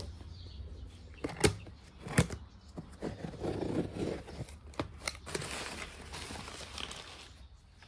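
Scissors slitting the packing tape on a cardboard box, then the flaps pulled open and paper wrapping rustled inside, with a few sharp knocks of the box being handled.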